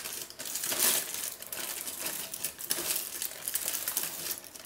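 A flour packet crinkling and rustling as it is handled, with dense irregular crackles throughout.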